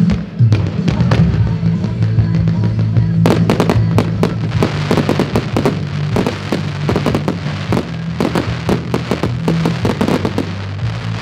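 Fireworks going off in quick succession: a sharp bang at the start, then a dense run of bangs and crackling from about three seconds in that thins out near the end. Music plays underneath throughout.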